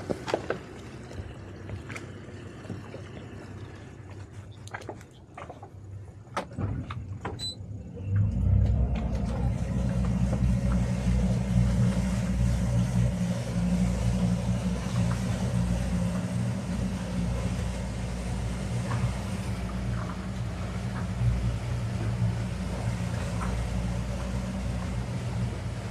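Towboat's engine running steadily underway, a low even rumble that comes in about eight seconds in. Before it there are only a few light clicks and knocks.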